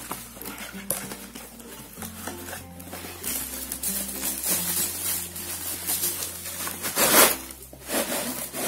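Cardboard fireworks box and its packaging rustling and scraping as hands open it and pull out the contents, loudest about seven seconds in. Background music with a steady bass line plays throughout.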